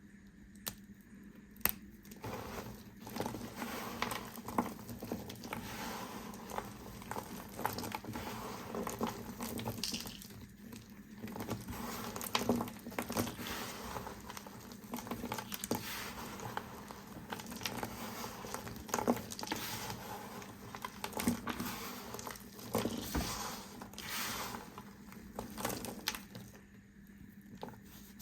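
A knife cutting through bar soap: a dense run of small crackling clicks in repeated strokes, with short lulls about ten seconds in and again near the end.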